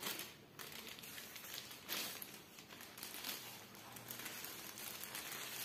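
Thin plastic wrapping crinkling and rustling as a clear phone case is slid out of it, in irregular crackly bursts. The loudest come at the very start and about two seconds in.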